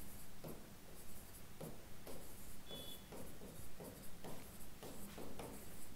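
Marker pen writing on a whiteboard: faint, short, irregular scratching strokes as words are written.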